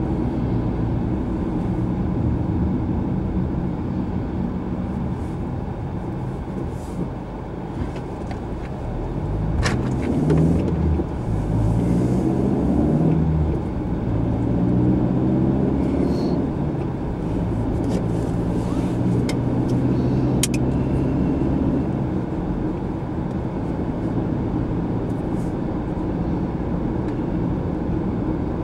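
Car engine and road noise heard from inside the moving car, the engine note rising as it accelerates about ten seconds in. A few sharp clicks are heard along the way.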